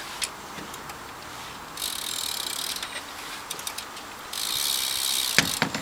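BMX rear cassette hub freewheeling, its pawls ratcheting in a fast buzz of clicks. There are two bursts of about a second each, around two seconds in and again around four and a half seconds in, with scattered single clicks between and a couple of knocks near the end.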